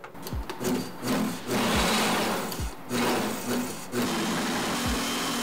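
Countertop blender running in a few short pulses, then steadily, chopping tomatoes, red onions and green peppers into a purée.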